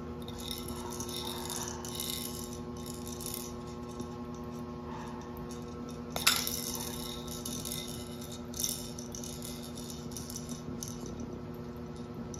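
Motorised wobbling toy chick running, a steady hum with rattling as it rocks on its egg-shell base. A sharp knock about six seconds in, the loudest sound, and a smaller one a couple of seconds later.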